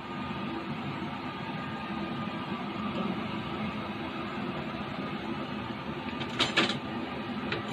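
Steady mechanical running noise, like an appliance or fan, with a couple of short light knocks about six seconds in.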